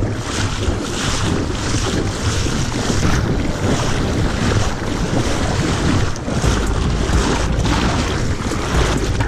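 Wind buffeting an action camera's microphone as a low, steady rumble over the wash of shallow water lapping around a wading angler, with small irregular knocks and splashes. The rumble gets heavier about two-thirds of the way through.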